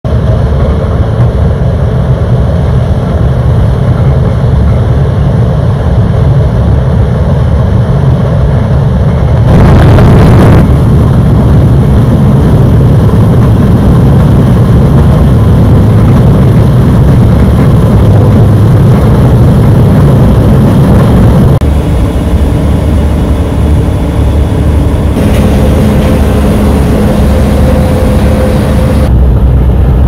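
John Deere 9500 combine running while it harvests standing corn: a loud, steady machine rumble. A brief surge of noise comes about ten seconds in.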